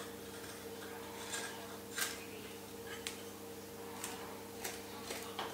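Nessmuk knife carving a willow spoon blank: about six short, crisp cutting strokes as shavings are sliced off, over a low steady hum.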